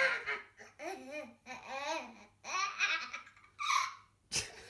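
A young child laughing hard in a string of short bursts, with one sharp tap near the end.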